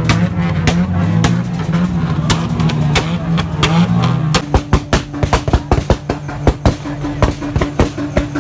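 A car engine running with a shifting low note. About halfway through it holds one steady high rev while a rapid, irregular string of sharp exhaust pops and bangs rings out.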